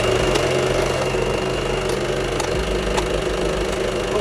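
Elna Explore 240 sewing machine running steadily, with a few sharp clicks as the stitch-selector dial is turned.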